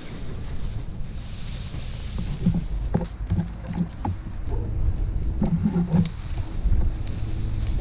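Low rumbling wind noise on the microphone, with scattered short knocks and rustles.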